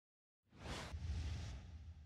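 Logo-intro sound effect: a whoosh about half a second in, followed by a low boom that slowly fades.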